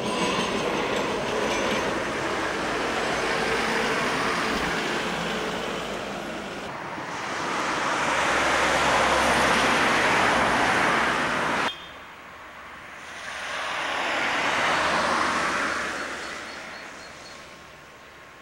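A red-and-white passenger train rumbles across a level crossing, its wheels running steadily on the rails. It is followed, after a cut, by two broad rushing swells of noise that rise and fade over a few seconds each; the first stops abruptly.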